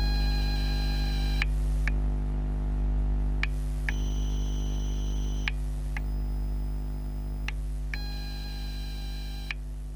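TGX12 Ni-MH/Ni-Cd battery charger heard through contact microphones: a steady electrical hum, with high whining tones that switch on for about a second and a half and off for about half a second, over and over, with a small click at each switch. The sound grows slowly quieter toward the end.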